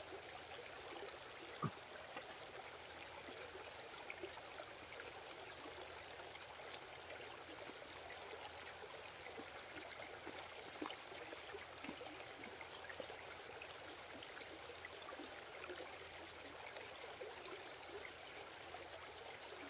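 Faint steady outdoor background hiss under a thin, high, steady tone, with a few soft clicks and taps scattered through, the clearest about two seconds in.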